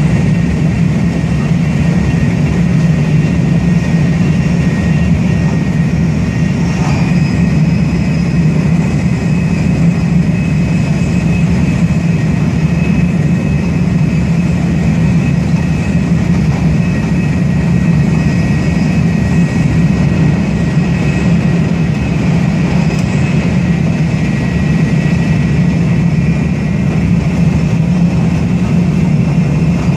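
Taiwan High Speed Rail 700T bullet train running at speed, heard from inside the passenger car: a steady low rumble with a faint, steady high whine.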